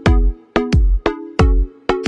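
Background music: an electronic beat with a deep kick about every two-thirds of a second and sharp clicks between, over held synth chords.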